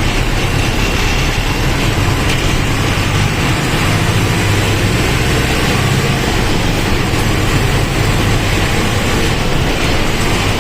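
Mercedes-Benz OF-1722M bus's diesel engine running steadily while the bus is driven, with road and body noise over a low drone.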